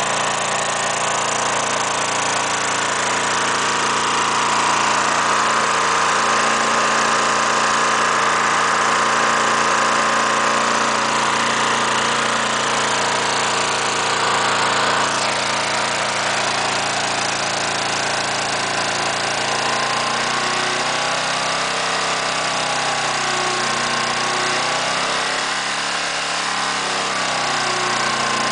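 Toro walk-behind lawn mower's small single-cylinder engine running on wood gas, fed by hose through a copper valve manifold, at a steady idle. A higher steady hiss over it cuts off about halfway through, and after that the engine speed wavers up and down.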